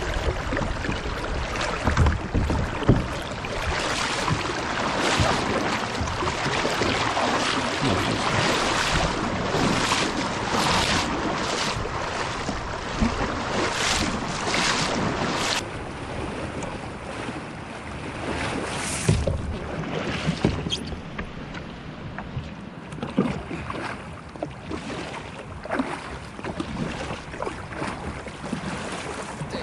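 Fast, high river water rushing over a rocky shoal, with irregular splashing from wading through the current; the splashing is heaviest in the first half and eases after about sixteen seconds.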